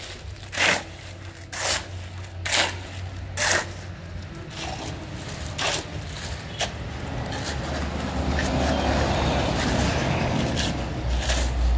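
Steel shovel scraping and chopping into wet concrete, about once a second for the first few seconds. In the second half, a vehicle engine rumble grows louder over the scraping.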